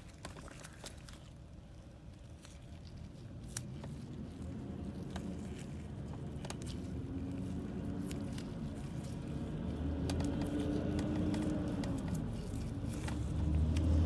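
Light crinkling, scraping and a few sharp clicks of vinyl electrical tape being wrapped around loose connector wires, under a low engine hum that slowly grows louder.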